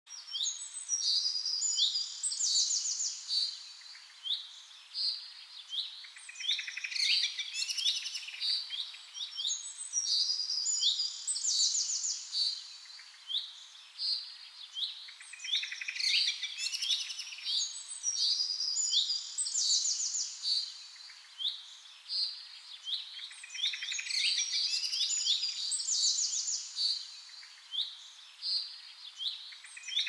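Small songbird singing: bursts of high, buzzy chirps and trills that come in clusters about every four to five seconds.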